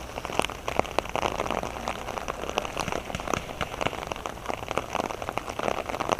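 Steady rain, with many close raindrops ticking irregularly on a surface near the microphone.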